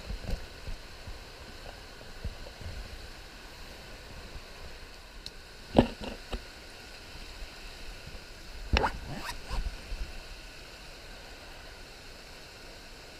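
Shallow river riffle rushing steadily. Close handling knocks and clicks from the tackle, with one sharp knock about six seconds in and a cluster of clicks around nine to ten seconds.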